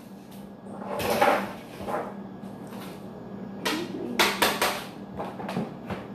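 Kitchen clatter as cookware is handled: a soft knock about a second in, then a quick run of sharp clacks around four seconds in, over a steady low hum.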